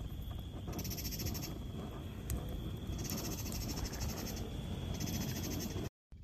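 Night insects calling in rapid high trills that come and go in spells of about a second, over the low crackle of a burning log campfire, with one sharp pop about two seconds in.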